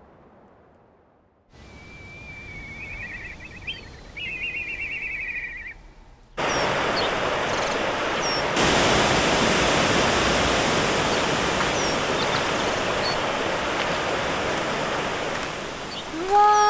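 Heavy rain pouring steadily on forest foliage, coming in suddenly about six seconds in and getting louder again a couple of seconds later. Before it, a high trilling call sounds for a few seconds against quiet ambience.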